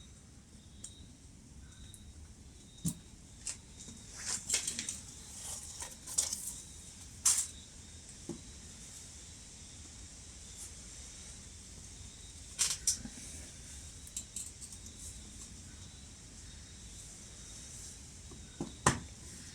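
Occasional light clicks, knocks and scrapes of parts being handled as the outboard's water pump housing is lowered over the drive shaft and seated on its gasket, over a faint steady hiss.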